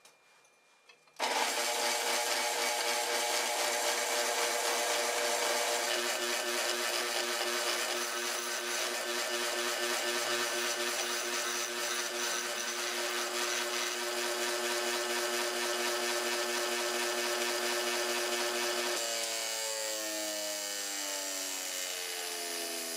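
Bench grinder running steadily while the carbide teeth of a Graff Speedcutter are ground flat against its wheel. The sound starts abruptly about a second in. Near the end the motor's pitch falls as it winds down.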